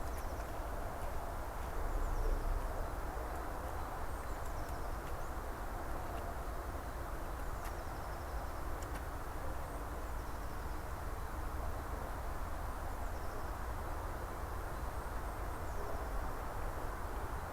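Outdoor forest ambience: a steady background hiss with a low rumble, and faint, short, high chirps that fall in pitch, heard several times a few seconds apart.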